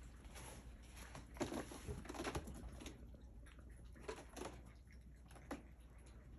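Kittens scampering and scratching: light scuffling and scratching with a few soft knocks, busiest about a second and a half in and again around four seconds.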